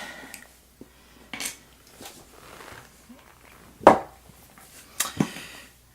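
A few sharp metallic clicks and clinks from a Medeco lock cylinder and small metal parts being handled while the lock is taken apart, the loudest about four seconds in.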